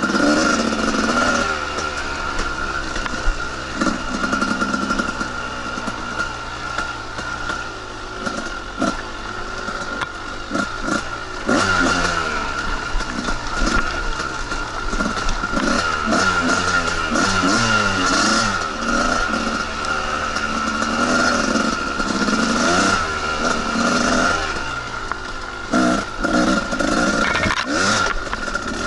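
Two-stroke dirt bike engine revving up and down as it rides a trail, with knocks and rattles from the bike over rough ground and a steady high whine underneath.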